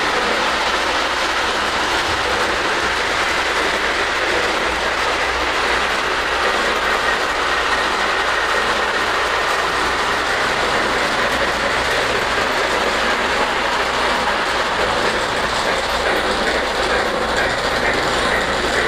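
Lionel Lone Ranger Wild West O-gauge model steam locomotive and cars running steadily along three-rail track: a steady rolling clatter of wheels on the rails.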